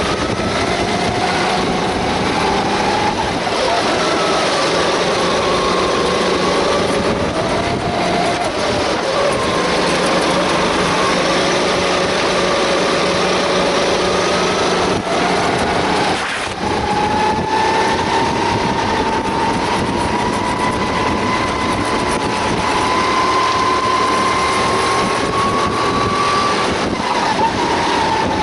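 Sodi racing kart's engine running at race pace, heard up close from on board. The pitch rises and falls with the revs through the corners, climbs steadily for about ten seconds on a straight from just past the middle, then falls as the driver lifts off near the end.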